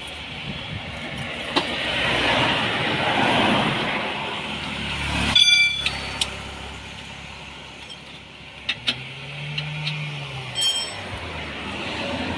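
Road traffic passing, swelling and fading, with a sharp metallic clank that rings briefly about five seconds in and a few lighter knocks of metal tools later on.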